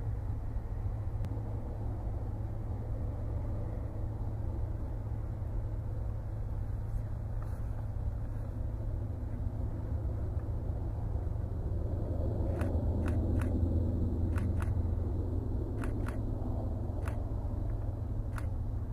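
Airbus A400M Atlas in flight at a distance: the low, steady drone and rumble of its four turboprop engines, swelling slightly about two-thirds of the way through as it passes closer.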